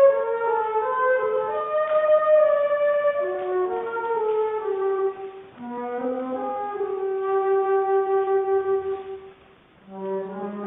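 Music: a single wind instrument playing a slow melody of separate notes. It holds one long note in the middle, pauses briefly near the end, then goes on.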